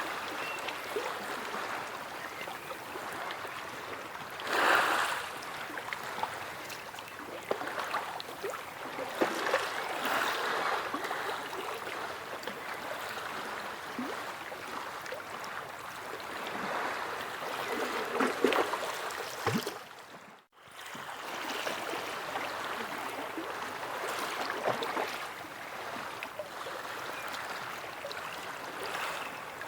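Sea waves washing, a steady rush of water that swells and eases, with louder surges about 4 seconds in and again past the middle. It drops out briefly about two-thirds of the way through, then resumes.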